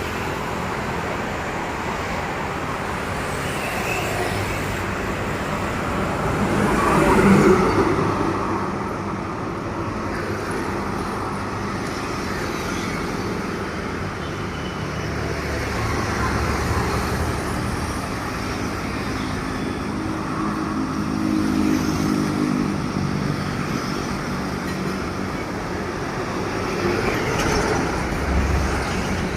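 Road traffic with heavy trucks driving past one after another: a steady rumble of engines and tyres. One vehicle passes loudest about seven seconds in, and a truck's engine drone stands out around twenty seconds in.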